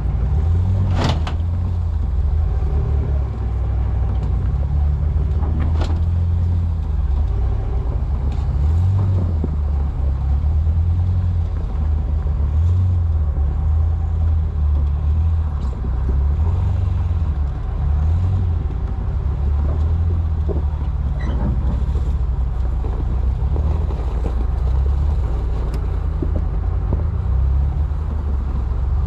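A 2008 Jeep Wrangler Unlimited's 3.8-litre V6, fitted with Gibson headers and a full exhaust, runs at low speed as the Jeep crawls up a snowy trail in four-wheel drive. Its note rises and falls with the throttle. A few sharp cracks stand out, the loudest about a second in.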